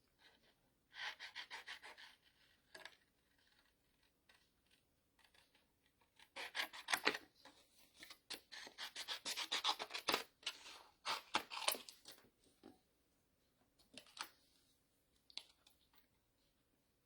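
Scissors snipping through paper in runs of quick short cuts, with pauses between, as a small stamped bird is cut out.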